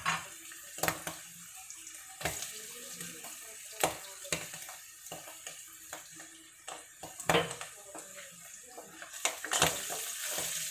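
Garlic and canned mushrooms sizzling in hot olive oil in a pan, the mushrooms' leftover liquid spattering in the oil, with scattered sharp clicks of a utensil against the pan. The sizzle grows louder near the end.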